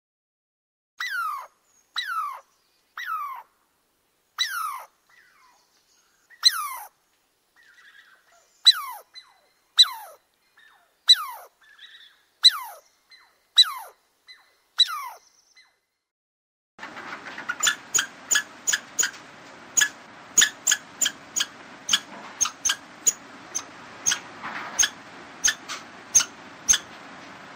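Squirrel calls. For the first half they are falling, whistle-like cries about one a second. From a little past halfway come rapid sharp chirps, about two a second, over a steady outdoor hiss, typical of a squirrel's alarm chatter.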